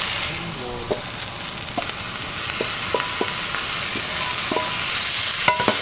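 Cauliflower rice and tofu sizzling in a frying pan, with a steady hiss, while cooked salmon is scraped into it from a second pan with a wooden spatula, giving scattered clicks, knocks and brief clinks of spatula and pan.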